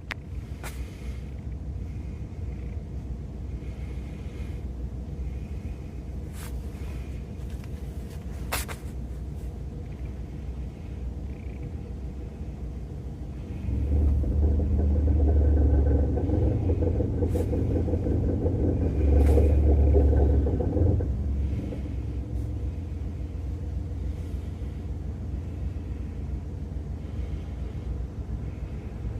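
A 2017 Toyota Pixis Mega's engine and running gear giving a steady low rumble, which swells much louder for several seconds in the middle before easing back, with a few sharp clicks scattered through it.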